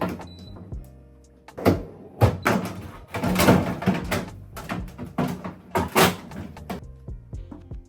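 A run of knocks and clattering as fridge contents, shelves or drawers are handled during a fridge clean-out, over background music.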